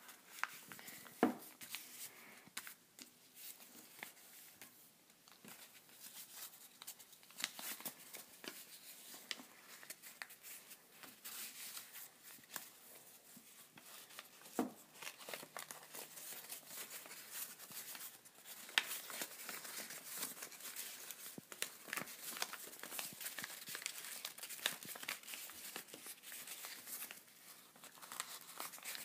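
A sheet of paper being folded and creased by hand: irregular rustling, crinkling and sliding, with a few sharper taps and clicks, the loudest about a second in.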